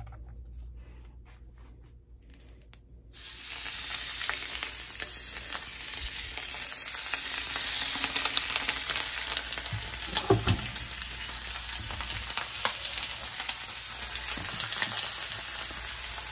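Seasoned, oil-coated chicken breasts sizzling as they sear in a hot pan. The sizzle starts suddenly about three seconds in and carries on steadily with scattered crackles.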